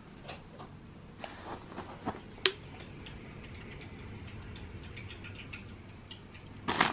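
Light clicks and taps of hands handling a plastic drink bottle and a crisp packet on a bed, the sharpest about two and a half seconds in. There is a brief loud rustle near the end.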